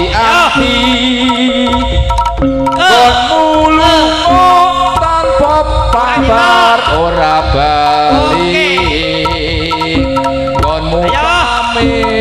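Live Javanese jaranan gamelan music: kendang hand drums beating under held gong-chime tones, with a wavering melody line rising and falling over them.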